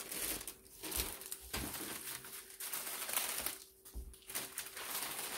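Large thin printed sheet rustling and crinkling as it is unfolded and smoothed out by hand, in uneven swells of handling noise.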